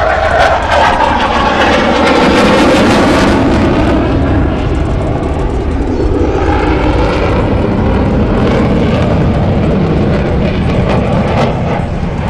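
Loud aircraft engine noise of an airplane passing close by. It is loudest about two to three seconds in, eases off, and swells again briefly around six to seven seconds.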